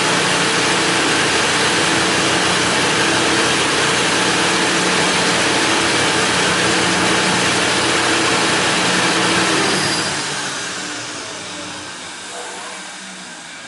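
Documation M600 punched card reader's blower running with a loud, steady rushing of air over a low hum, then spinning down and fading from about ten seconds in.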